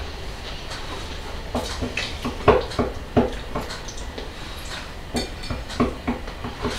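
Forks and knives clicking and scraping on ceramic dinner plates during a meal, in a few irregular light knocks and clinks.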